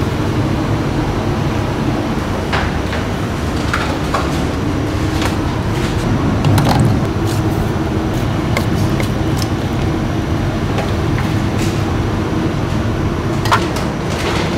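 Steady low rumble of stall and street noise with a few scattered knocks of a cleaver on a wooden chopping block.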